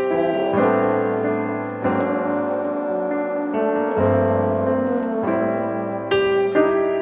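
Background music: slow piano chords, a new chord struck every second or so.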